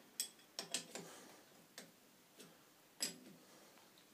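Allen key clicking against the locking bolts of a Schaublin SV52 milling head as they are tightened: a few sharp metallic clicks at uneven intervals, the loudest about three seconds in.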